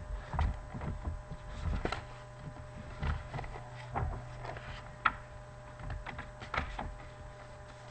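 Scattered small knocks and clicks over a steady low hum, with one sharper click about five seconds in.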